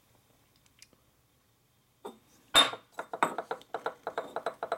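About two seconds of near silence, then a sharp metallic clink, followed by quick, even scraping strokes that speed up. The strokes are carbon being rubbed off the crown of an aluminium stroker piston to bare its stamped part number.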